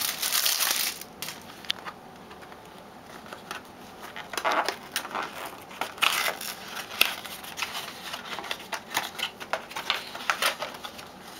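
Trading-card box packaging being opened and handled: a burst of rustling and tearing in the first second, then scattered crinkles and small plastic clicks as the card is taken out.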